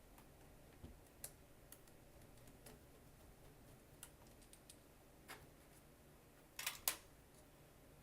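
Scattered light clicks and taps of small plastic and metal laptop parts being handled, with a louder pair of clicks near the end.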